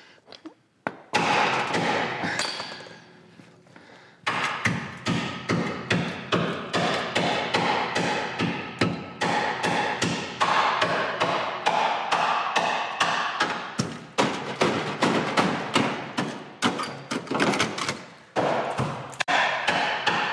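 Hammer blows struck over and over on a car's steel frame, about three to four a second, with short pauses: a hammer test for rust rot in the frame.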